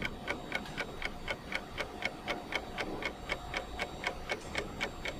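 Fast, steady ticking, about four ticks a second, like a clock.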